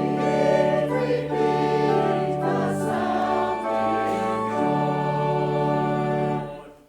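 Choir singing with organ, in sustained chords over a held bass, ending on a final chord that dies away near the end.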